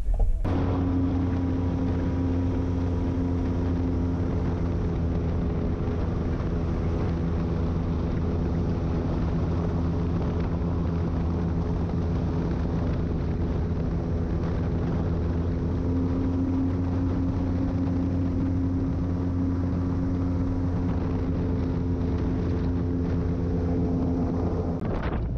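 Airboat engine and propeller running steadily: an even, pitched drone with a strong hum, starting abruptly about half a second in.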